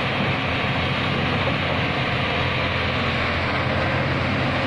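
Hyundai tracked excavator's diesel engine running steadily at an even pitch, a continuous low drone.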